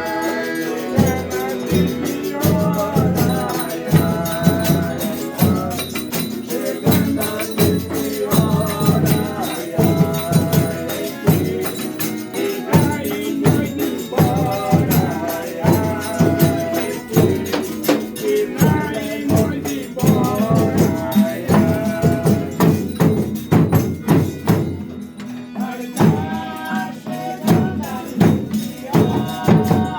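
Folia de Reis group singing a devotional song, with tambourines and drum beating a steady rhythm.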